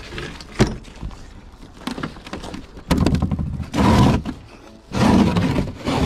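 A heavy concrete screen block being shifted on a frosty plastic bin lid: a sharp knock just over half a second in, then three scraping drags of concrete across the plastic in the second half.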